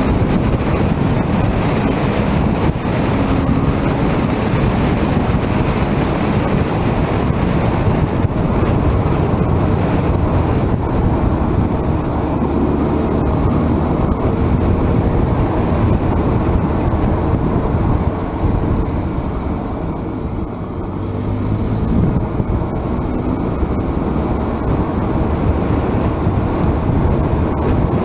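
Wind buffeting a camera mounted low on a moving car, over steady road and engine noise, easing slightly about twenty seconds in.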